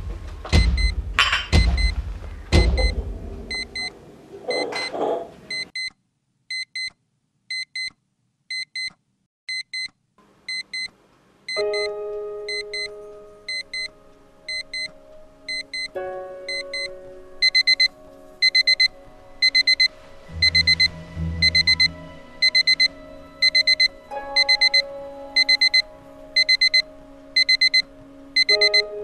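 Alarm clock beeping in short double beeps a little more than once a second, faint at first and much louder from a bit past halfway. Soundtrack music with slow held chords comes in about a third of the way through, and there are a few sharp knocks at the very start.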